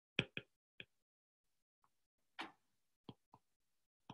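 Faint, irregular ticks and taps of a stylus tip on a tablet's glass screen during handwriting, about seven short clicks.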